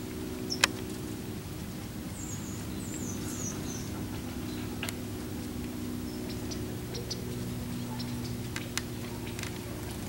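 Several short, high chirps from small birds over a steady low hum, with a few sharp clicks scattered through; the loudest click comes about half a second in.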